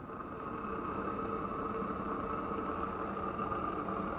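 Lit gas stove burner heating a steel kettle: a steady hiss with a faint hum in it.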